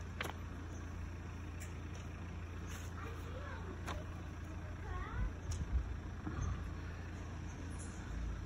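Steady low outdoor rumble, with a young child's short high-pitched calls a few seconds in and a few low thumps just after.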